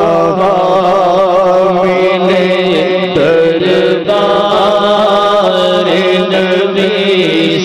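A man singing an Urdu naat solo into a microphone, drawing out a long, wavering, ornamented melodic line over a steady low hum.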